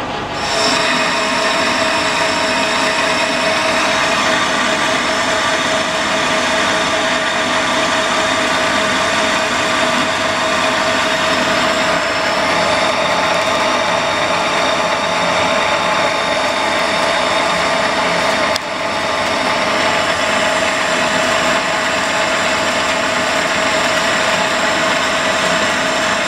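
Metal lathe taking a heavy boring cut inside a 4140 steel hollow-bar bush with a boring bar. The noise is loud and steady, with a constant tone, and starts about half a second in as the tool bites. It dips briefly once, about two-thirds of the way through.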